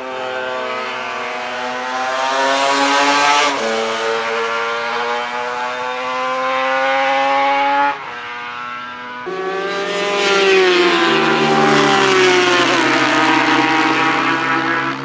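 Classic racing motorcycle engine accelerating hard, its pitch climbing, with a gear change about three and a half seconds in. After a break near eight seconds, a bike's engine note falls as it goes by or slows, then holds steady.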